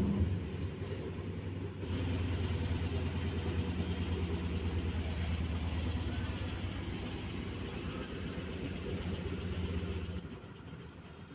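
Washing machine on its spin cycle: a steady low motor hum with a fast, rough drum rumble that comes in about two seconds in and drops away near the end.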